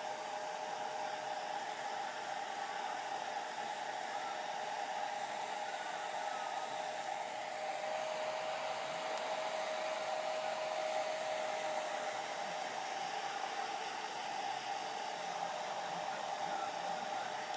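Hair dryer running steadily: an even rushing hiss with a constant mid-pitched whine.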